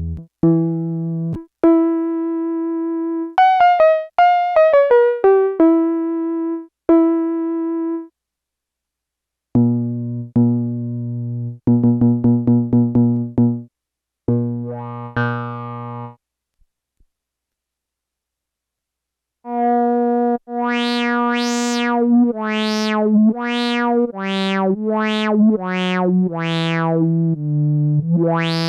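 Yamaha SY-2 vintage analog synthesizer playing single notes: a held note, a quick falling run and fast repeated notes, with two pauses. In the last third a lower, buzzier voice plays a run of notes whose bright upper tones swell and fade with each note, like a filter opening and closing.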